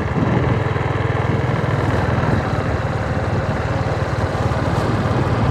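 A vehicle engine running steadily on the move, a low even rumble with a fast regular pulse, with wind and road noise over it.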